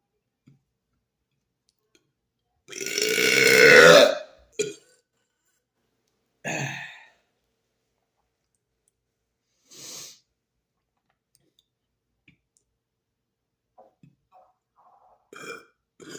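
A man burps one long, loud belch starting about three seconds in and lasting over a second, with a brief sound right after it. A shorter, quieter sound comes about three seconds later, a faint one near ten seconds, and small clicks near the end.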